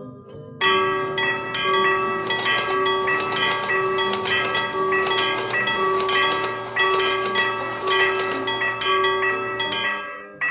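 Railroad crossing warning bell clanging in a rapid, even rhythm, with a short break near the end.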